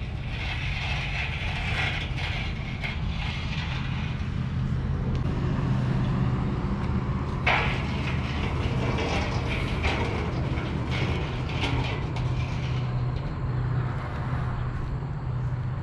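A vehicle engine running with a steady low drone. A few short clicks or knocks come over it, the sharpest about halfway through.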